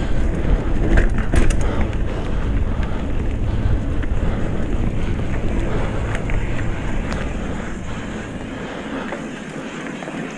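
Retro Norco Bush Pilot mountain bike rolling over a rough trail: steady tyre and drivetrain noise with scattered sharp rattles and clicks, and wind buffeting the microphone that eases near the end.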